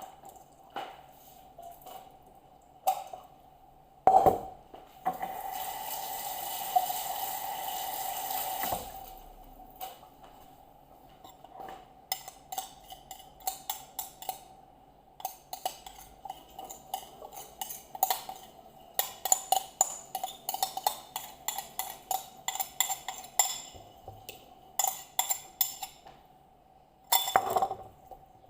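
Kitchen handling sounds during marinating of a whole chicken: a few knocks of bowl and utensils, then a steady hiss for about four seconds. After a pause comes a long run of quick light clicks and taps as the marinade is worked.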